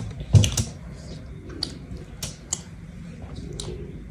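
Close-up eating sounds: roast chicken pulled apart by hand and chewed, with scattered wet mouth clicks and smacks and a short louder sound about half a second in.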